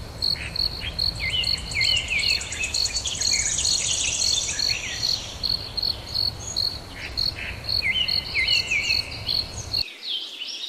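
An insect chirping in an even pulse, about two to three chirps a second, while birds call in short sliding notes, with a fast high trill in the middle. A low background rumble cuts off shortly before the end.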